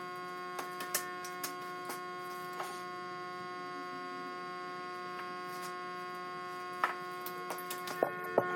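Steady electrical hum with several overtones, overlaid by scattered light clicks and knocks, a few sharper knocks near the end.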